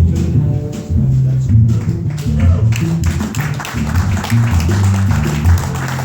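Live small-band performance of a tune led by the bass, which plays a line of strong, plucked low notes; the upper range grows brighter and busier from about halfway.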